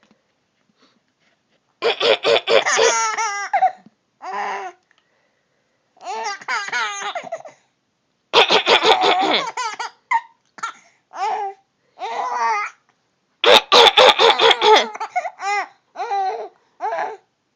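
A young child laughing in about six separate fits of high-pitched laughter, with short silent pauses between them.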